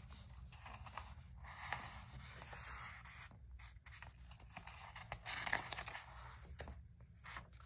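Paper pages of a paperback coloring book rustling and sliding as they are turned and smoothed flat by hand, in several faint soft scrapes.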